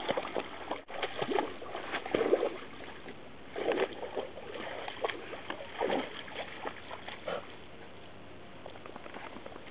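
Lake water splashing and lapping in short, irregular bursts.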